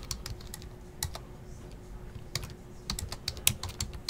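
Typing on a computer keyboard: irregular key clicks in quick runs, with a pause of about a second in the middle.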